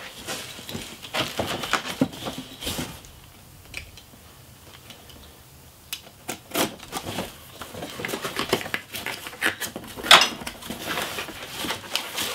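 Cardboard boxes and plastic packaging being handled and opened by hand: scattered clicks, taps and rustles, with a quieter pause of a few seconds in the middle.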